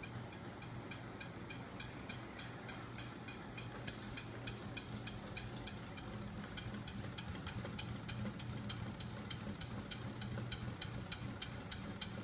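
Homemade magnet-driven flywheel and crankshaft rig running on its small 24 V DC electric motor: a steady hum with light regular ticks, about four a second.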